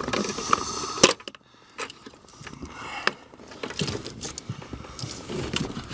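Plastic wiring-harness connectors handled and unplugged under a pickup's dashboard: scattered clicks and light rattles, the sharpest click about a second in.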